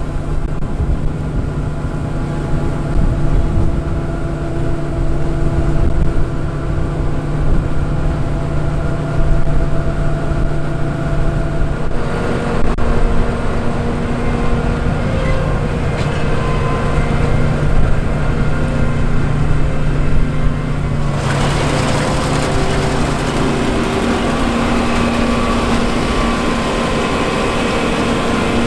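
John Deere 9450 combine running while harvesting wheat: the steady drone of its 6.8-litre PowerTech diesel with the hum of the threshing machinery. The sound's character changes abruptly twice, about twelve and twenty-one seconds in.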